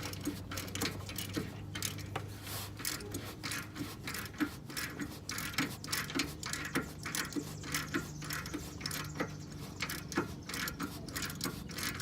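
Socket ratchet clicking in quick, uneven runs of strokes as a bolt is turned out.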